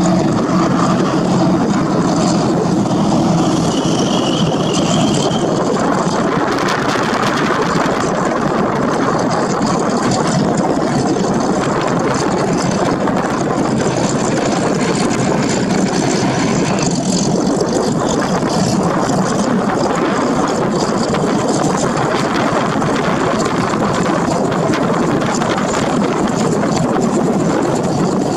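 Robinson R44 Raven II helicopter running on the ground, its six-cylinder Lycoming piston engine going and its main and tail rotors turning, with a steady, unchanging noise.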